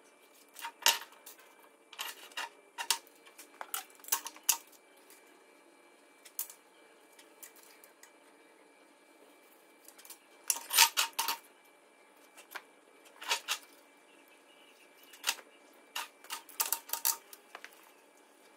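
Irregular metallic clinks and knocks of steel parts and hand tools being handled and set down, in short clusters of sharp taps with pauses between, the busiest cluster about eleven seconds in.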